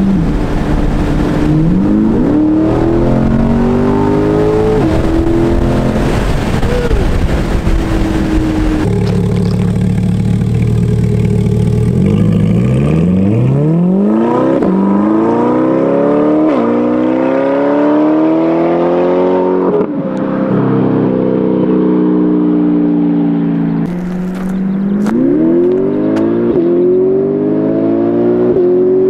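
Corvette C8's 6.2-litre V8 breathing through a Paragon Performance track exhaust, accelerating at full throttle. The pitch climbs and drops sharply at each upshift, several times. It is heard first from inside the cabin and, from about nine seconds in, from the roadside.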